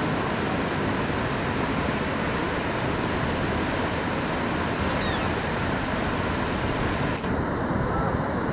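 Steady rushing noise of river water, even and unbroken; the swans make no calls.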